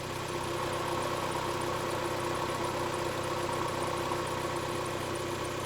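A 1991 Mazda Miata's 1.6-litre four-cylinder engine idling steadily, with only a faint, rapid, even ticking over the hum. The hydraulic lifter tick has been quieted by Rislone engine treatment.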